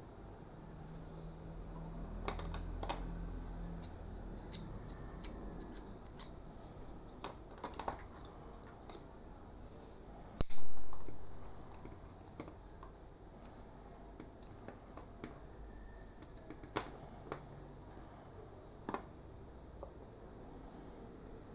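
Small plastic parts of a car phone holder clicking and tapping irregularly as they are handled and fitted together, with one much louder sharp click about ten seconds in.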